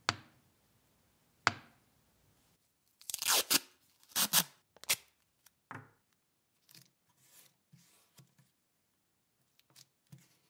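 Two sharp knocks of the wooden handle scales being handled, then masking tape pulled off the roll and torn in several loud rips about three to five seconds in. Softer rustling and pressing follow as the tape is laid onto the wood.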